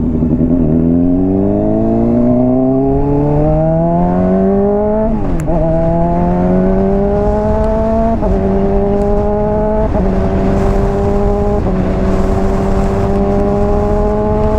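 Honda CBR600RR inline-four through a Hotbodies Stinger slip-on exhaust, accelerating with the engine note rising steeply, then dropping sharply on an upshift about five seconds in. It climbs more slowly through a few more quick shifts, each a small dip, and settles into a near-steady top-gear cruise.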